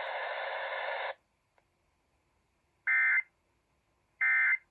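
Emergency Alert System end-of-message code: after about a second of steady static that cuts off, two short bursts of buzzing digital data tones (the SAME EOM) sound about 1.3 s apart, the second near the end.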